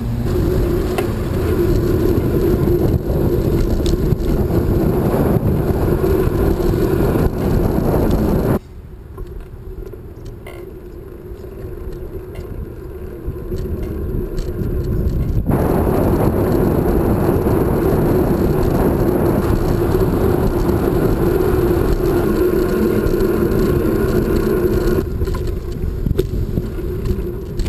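Wind and tyre rumble on a bike-mounted action camera while riding a bicycle, a steady loud rush. About a third of the way through it drops to a much quieter level for about seven seconds, then comes back up.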